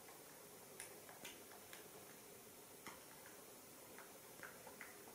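Near silence: quiet room tone with about seven faint, short clicks at uneven intervals.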